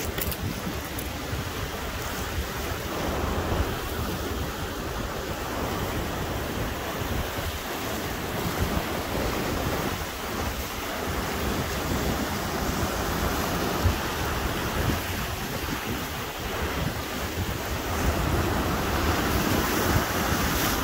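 Sea surf washing and breaking against a rocky shore in slow swells, with wind buffeting the phone's microphone as a fluctuating low rumble.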